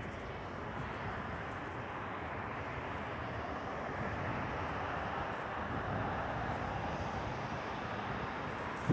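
Steady road traffic noise, swelling a little about halfway through as vehicles pass.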